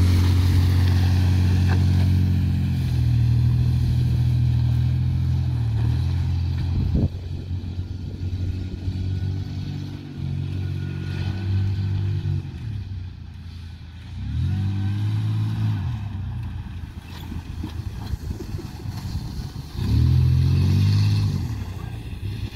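Lifted Ford Ranger pickup's engine running under load as it tows a kiddie pool on a rope over grass, the revs rising and falling several times. A single sharp knock about seven seconds in.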